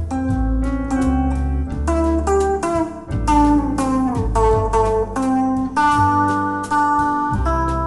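Instrumental Brazilian bossa nova in C at a slow tempo of about 85 beats a minute: plucked melody notes and chords over a sustained bass line, with chord changes every second or so.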